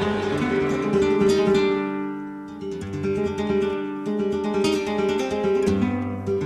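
Background music of acoustic guitar: plucked notes ringing over chords, with a few strummed chords.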